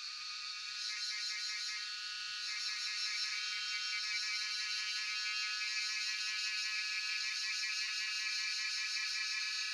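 Cicadas buzzing in a steady, high-pitched chorus that swells about a second in and again near three seconds, then holds level.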